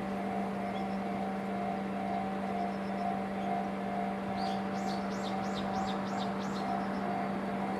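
Railway level-crossing electronic warning bell ringing in evenly repeated strokes over a steady low hum. About halfway through, a small bird sings a quick run of about seven descending high notes.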